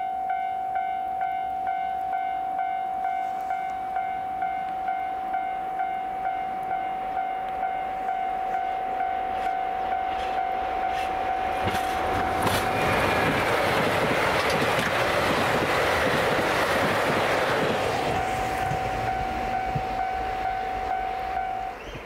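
Level-crossing warning bell ringing in a steady, even pulse of about two strikes a second. Around halfway through, a train rushes over the crossing, with a swelling wash of wheel-on-rail noise and clicks that is the loudest part. The bell cuts off just before the end.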